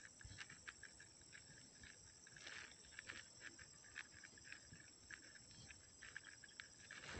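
Near silence, with a faint steady insect chirring and a few scattered faint ticks.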